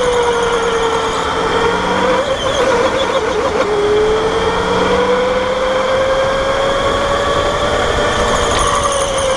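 Electric go-kart's motor whining, its pitch falling and rising with speed: lowest about three and a half seconds in as it slows for a corner, then climbing as it accelerates. A steady hiss of tyres and air runs beneath it.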